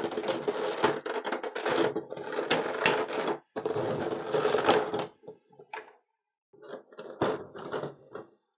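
Clear plastic blister trays crackling and clicking as they are handled and pulled apart. The crackle is dense for about five seconds, then thins to scattered clicks and taps.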